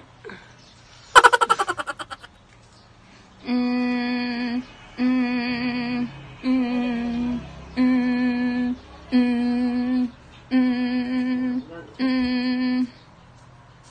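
A woman humming seven steady notes on one pitch, each about a second long with short breaks between, after a brief laugh about a second in.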